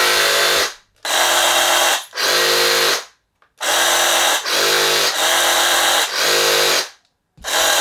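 Two Ryobi 18V cordless reciprocating saws, the newer RRS18-0 and the older RRS1801M, run free in the air with no load. The triggers are pulled in about seven bursts of roughly a second each, with short gaps. The newer saw runs at the faster stroke rate and the older one is audibly slower.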